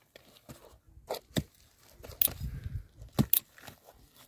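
A hand mattock striking dry, stony ground several times as it tears a dry desert shrub out by the roots, with crunching and scraping of brittle brush and soil between the blows.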